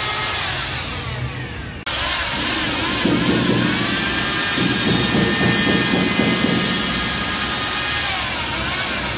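Corded electric paddle mixer churning cement-based tile adhesive in a plastic bucket. The motor whines, its pitch falling and rising as the speed changes, and under it the paddle churns through the thick mix. The sound breaks off sharply about two seconds in and comes straight back.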